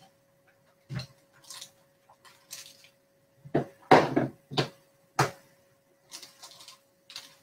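Short knocks and rustles of crafting materials being handled on a tabletop, loudest about halfway through, over a faint steady hum.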